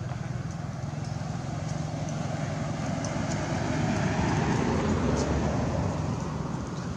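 An engine running with a steady low hum, growing a little louder about halfway through.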